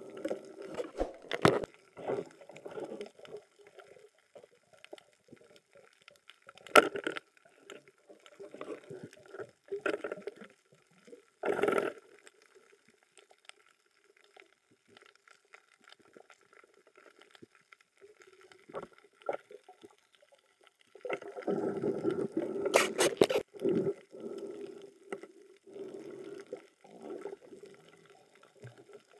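Underwater water sounds heard through a diving camera's housing: irregular gurgling and sloshing in patches, with a few sharp clicks or knocks, several close together late on.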